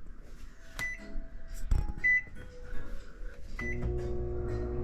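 Microwave oven being started: three short keypad beeps as the time is set, then the oven starts running about three and a half seconds in with a steady hum.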